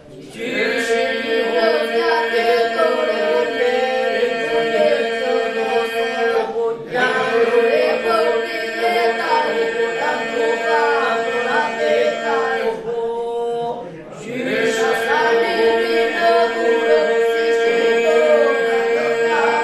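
Boys' group singing an Albanian folk polyphonic song: a steady drone held by the group under a moving melody line. It comes in three phrases, with short breaks for breath about seven and thirteen seconds in.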